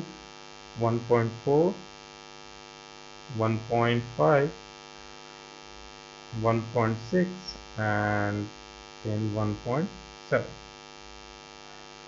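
Steady electrical mains hum on the recording, under short spoken phrases that come and go.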